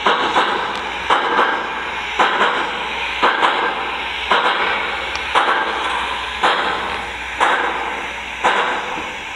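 An MTH RailKing O-scale Union Pacific Big Boy model locomotive runs with its Proto-Sound 3.0 steam sounds playing through the onboard speaker. The chuffs come mostly in pairs, about once a second, over a steady hiss.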